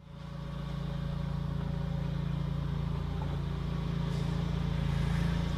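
A 1970 Dodge Charger's engine idling, an even low hum that fades in over the first half second and then holds steady.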